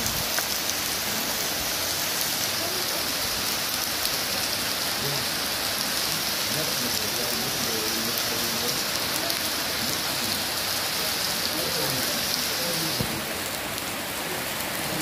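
Steady rain falling on trees and wet ground, an even hiss. The brighter, higher part of the hiss drops away about 13 seconds in.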